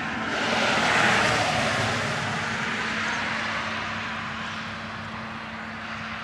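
A vehicle passing on the road, its tyre hiss swelling to a peak about a second in and then slowly fading away.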